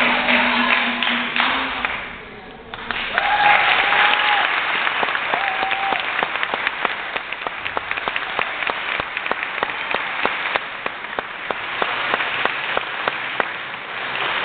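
Capoeira music with berimbau and hand-clapping ends about two seconds in, and a theatre audience breaks into steady applause, with two short held cheers soon after the applause starts.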